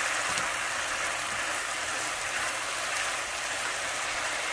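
Sausage, rice and vegetables sizzling steadily in a skillet on high heat, just after white wine has been poured in to deglaze the pan, while a spatula stirs the mixture.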